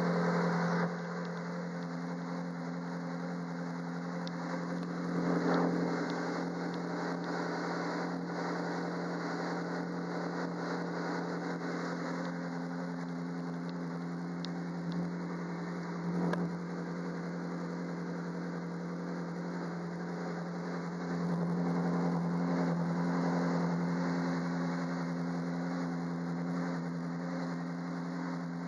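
Ferrari 458 Challenge's V8 engine idling steadily, heard in the open cockpit. It gets briefly louder about five seconds in and again for a few seconds in the second half.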